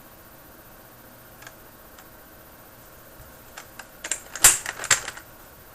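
Plastic clicks of a keycap being pried off a Key Tronic rubber-dome keyboard: a few faint ticks, then a quick burst of sharp clicks about four to five seconds in.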